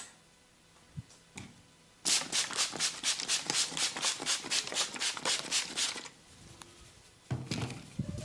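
Rapid percussive massage strokes: hands striking skin in a fast, even run of slaps, about six a second, starting about two seconds in and lasting some four seconds.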